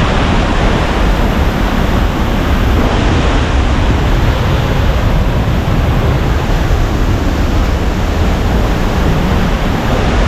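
Waterfall roaring steadily and loudly, heard up close as a constant rush of falling water.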